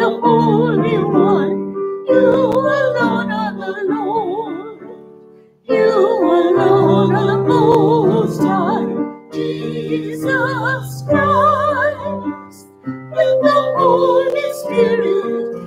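A solo voice sings with vibrato over sustained instrumental accompaniment: a sung part of the Mass's opening rites. The phrases break off briefly about five and a half and again about thirteen seconds in.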